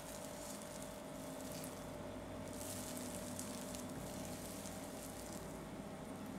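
Hands pressing down and pulling up soft, risen yeast dough in a glass bowl: a sticky, crackling squish as the dough is deflated.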